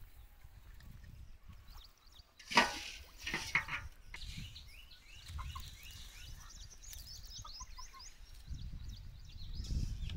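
Fowl calling: one loud squawk about two and a half seconds in, then clucks and a run of short high chirps. Near the end comes a low rushing as parboiled paddy grain is poured from a pot onto a drying mat.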